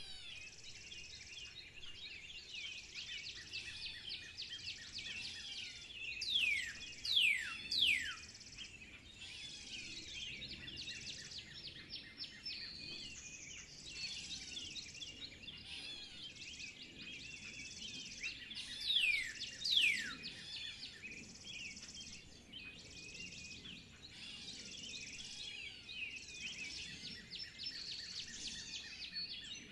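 A chorus of many small songbirds chirping and twittering. One louder bird gives quick whistles that fall sharply in pitch, two or three in a row about six seconds in and again a little before twenty seconds.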